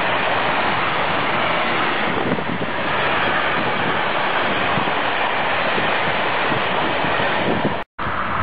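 Freight train of container and swap-body wagons rolling past close by: a steady, loud noise of wheels on the rails. It cuts off suddenly near the end.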